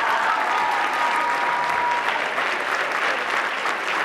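A large audience applauding, the clapping dense and steady. For about the first two seconds one long high whoop is held above the applause.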